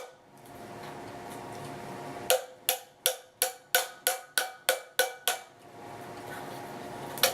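A run of about ten quick metal taps, about three a second, each with a short ringing, then a single tap near the end: the ends of a wire coat-hanger handle being banged down against a steel food can.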